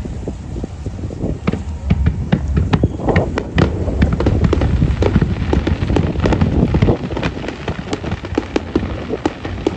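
Fireworks display going off: rapid sharp cracks and pops from bursting aerial shells, over a steady low rumble. The cracking thickens about a second and a half in.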